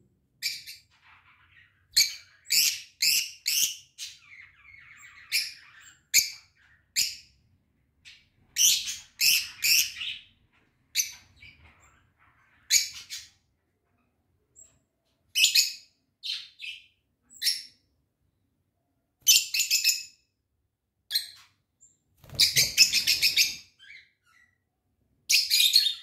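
Lutino rosy-faced lovebirds calling: short, shrill chirps in quick clusters, on and off, with gaps of silence between them. Near the end comes a longer, harsher burst.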